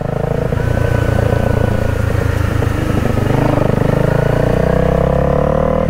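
Honda Rebel 250 motorcycle engine running under way, its pitch rising through the second half as it accelerates.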